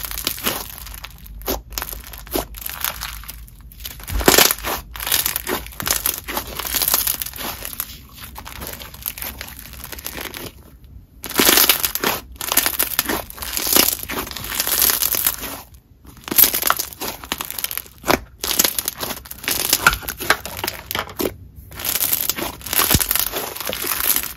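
Crunchy foam-bead slime being squeezed and kneaded by hand: a dense, irregular crackling of the foam beads and popping of trapped air bubbles, with a few short pauses between squeezes.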